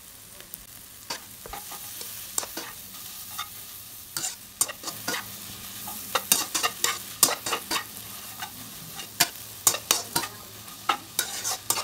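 A spatula scraping and knocking against a nonstick wok while stir-frying instant noodles, over a steady faint sizzle. The strokes are sparse at first and come faster and louder from about four seconds in.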